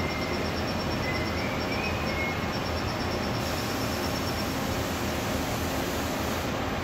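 Steady machine noise from a CNC vertical turret lathe as a spiral-flute tool on its driven spindle works a hole in a large steel ring. A faint wavering whine stops about two seconds in.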